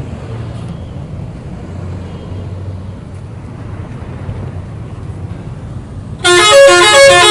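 Low steady rumble of a vehicle, then about six seconds in a Rosalia Indah bus's telolet horn suddenly blares a loud multi-note tune, its notes stepping up and down several times a second.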